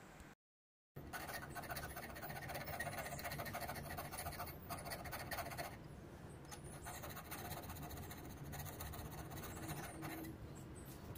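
Diamond file rasping back and forth across the tip of a boring-bar cutter, rounding a small radius onto the cutting edge so the tool stops chattering. It starts about a second in, goes stronger for a few seconds, then carries on lighter and quieter.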